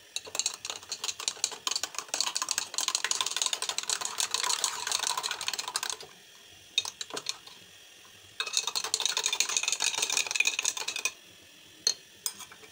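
Metal spoon stirring cornflour into milk in a glass jug to dissolve it into a slurry: rapid clinking of spoon against glass for about six seconds, a short pause with a couple of single taps, then another bout of about three seconds and a few last taps near the end.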